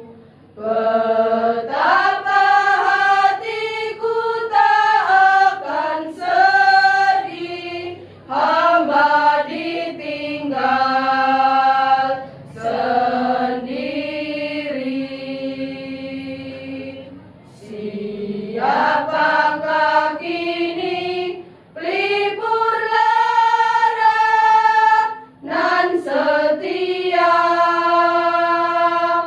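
Women's choir singing together in harmony, phrase by phrase, with long held notes and short pauses for breath between phrases.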